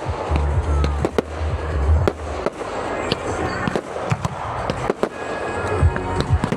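Fireworks display: a rapid, irregular run of bangs and cracks from exploding shells, several a second, with a few short whistles among them.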